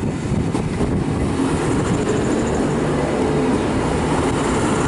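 V/Line VLocity diesel multiple unit running close by at the station, a steady loud diesel engine rumble with a faint high whine coming in about two seconds in.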